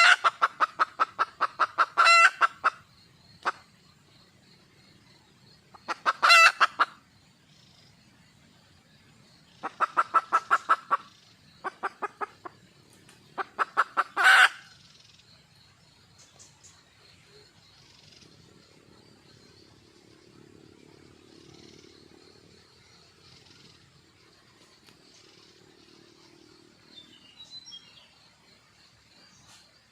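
Red junglefowl hen calling for a male: five bouts of rapid, evenly spaced clucking notes in the first fifteen seconds or so, each bout ending in a louder note, after which the calling stops.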